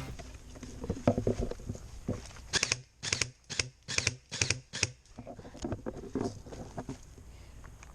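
Footsteps crunching on dry ground, a steady walking rhythm of about seven steps in a row in the middle.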